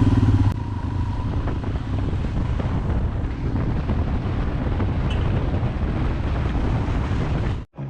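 Motorcycle riding along with heavy wind rushing over the microphone, the engine's low hum running under the wind noise. The sound cuts off abruptly near the end.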